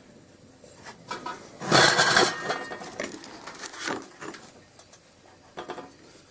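Clinks and knocks from handling a metal Coleman gas lantern, with one louder noisy rush lasting about half a second roughly two seconds in.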